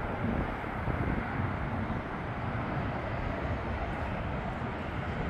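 Avro RJ100 four-engine jet climbing away after takeoff: its Honeywell LF507 turbofans at climb power, heard from the ground as a steady rumbling rush of engine noise with no distinct tones.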